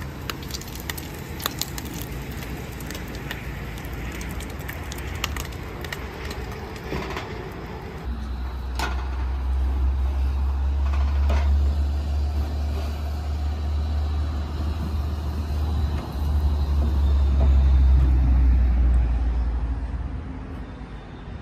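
Spatula scraping and tapping a stainless pan of scrambled eggs on a camp stove, with quick clicks and scrapes through the first several seconds. From about a third of the way in, a heavy steady low rumble takes over, easing off near the end.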